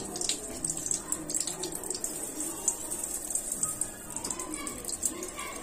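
Water running in a steady stream from an electric instant water-heater tap (mini geyser).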